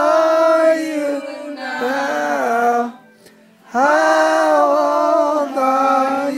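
A group of people singing together in one loud chorus, holding long notes, with a short break about three seconds in before they carry on.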